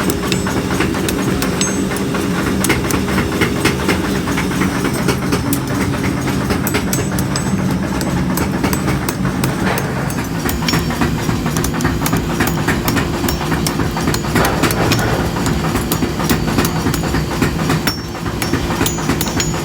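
Workshop machinery running with a steady motor hum under dense, fast metallic clattering and knocking.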